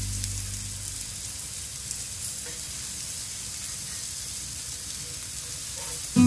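Skewered minced-meat kebabs and flatbread sizzling steadily on a hot round metal griddle over a gas burner.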